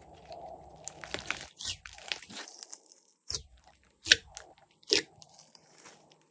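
Glossy slime being squeezed and worked by hand, crackling, with three sharp loud pops near the middle and end as trapped air bursts.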